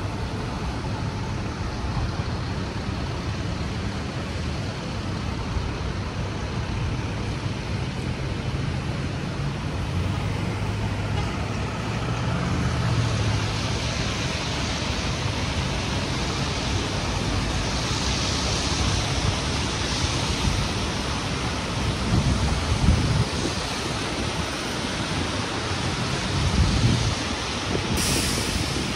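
City street traffic noise: a heavy vehicle's engine runs with a low hum over a steady hiss. The hiss grows brighter about halfway through, and a couple of louder low rumbles come near the end.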